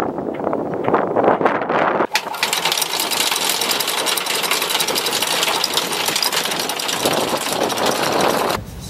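Electric anchor windlass running, the chain rattling steadily over the gypsy; it settles into a fast, even clatter about two seconds in and cuts off suddenly just before the end.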